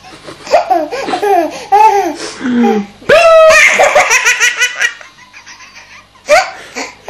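A baby belly-laughing in repeated bursts. The laughter is loudest about three seconds in, where it breaks into a long run of high, rapid giggles.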